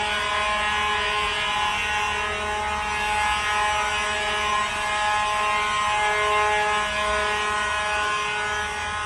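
Fire alarm horns sounding continuously as a steady, many-pitched tone.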